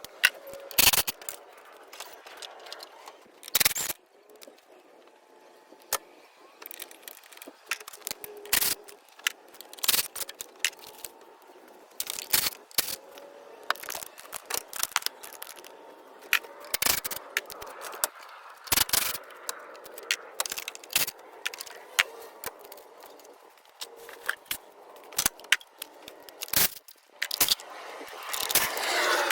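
Irregular sharp clicks, knocks and light metallic clatter of hand tools and engine parts being handled. Near the end, a louder steady rushing sound begins.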